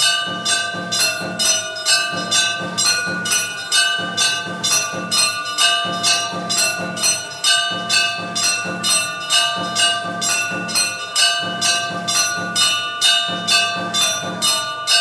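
Temple bell rung in a steady rhythm, about two and a half strokes a second, each strike ringing on into the next.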